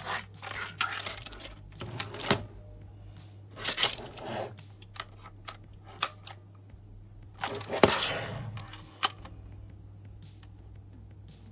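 Redragon K552 mechanical keyboard being handled: scattered sharp clicks and three longer rubbing, scraping noises. It quiets down after about nine seconds.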